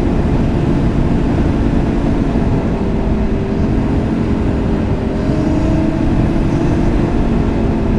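Ski-Doo Mach Z snowmobile's 900 ACE Turbo R engine, fitted with an aftermarket tune and downpipe, running at a steady trail-cruising speed. Its pitch holds nearly level, over a heavy rumble of track and wind noise.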